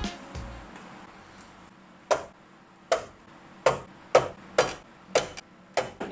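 The tail of background music dies away, then seven sharp taps at uneven intervals from about two seconds in, each with a short ring.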